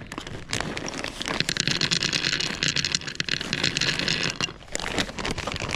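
Rustling and crinkling of wrapping material being handled: a dense run of fine crackles that thickens about a second and a half in and eases near the end.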